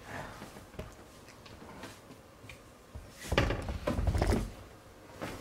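Camera handling noise: a quiet room, then about three seconds in, a second and a half of low rumbling bumps and rubbing as the camera is moved.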